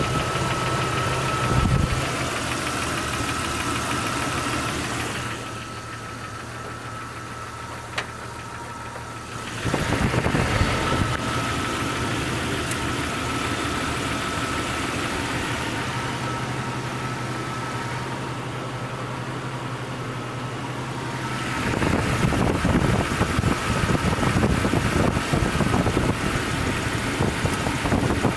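1999 Jeep Cherokee XJ engine running cold with a knock, which the owner takes for piston slap. Its loudness shifts, quieter for a few seconds early on and louder and rougher in the last few seconds.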